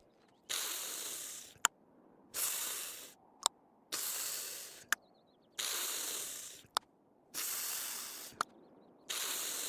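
Six short hissing bursts, each fading out and followed by a sharp click, repeating about every second and a half to two seconds.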